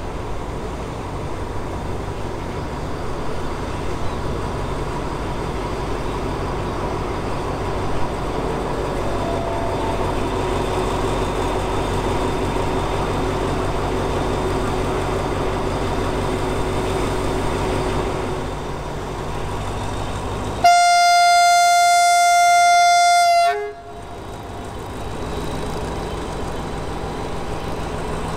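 Alsthom diesel-electric locomotive's engine running with a steady rumble, then one loud single-note horn blast of about three seconds, about three-quarters of the way through, which cuts off sharply.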